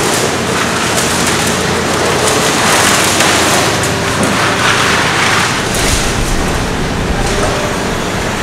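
Hitachi Zaxis 490 hydraulic excavator demolishing concrete: its diesel engine runs under load beneath continuous crunching and rattling of broken concrete and rubble, loudest a few seconds in.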